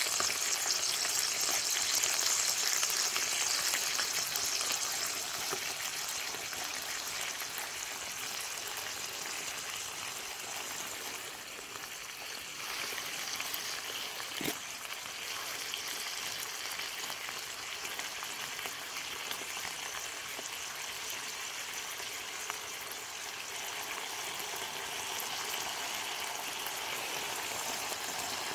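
Smoked back bacon sizzling in hot sunflower oil in a frying pan on a Trangia alcohol stove: a steady hiss, a little louder in the first few seconds just after the rashers go into the oil. One small click about halfway through.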